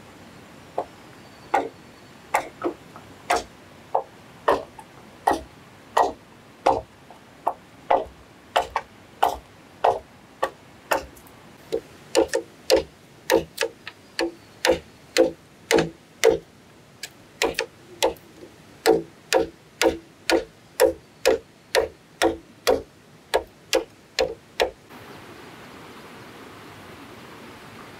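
Machete chopping into green bamboo poles: a long series of sharp, hollow strikes, roughly one to two a second. About 25 seconds in the strikes stop and a steady rush of flowing creek water takes over.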